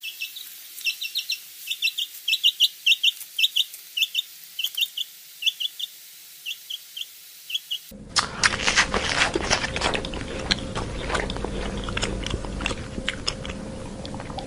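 Bird chirping in short, high notes, two or three at a time, for about eight seconds, then an abrupt change to a noisy, crackly background with scattered clicks.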